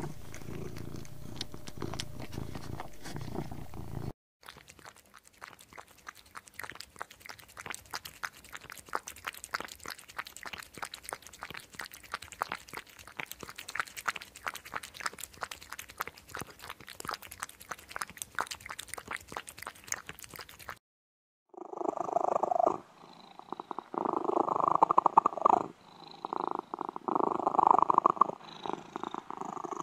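A domestic cat purring in a low, steady rumble. About four seconds in it cuts to a long stretch of faint, dense crackling clicks. Near the end a cat gives a run of loud, drawn-out meows.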